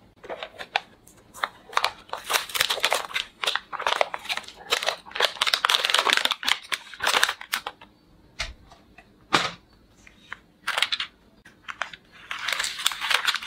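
Clear plastic blister packaging crinkling and crackling as it is peeled and torn off a cardboard backing card, in irregular bursts. It is busiest through the first half and again near the end, with scattered crackles in between.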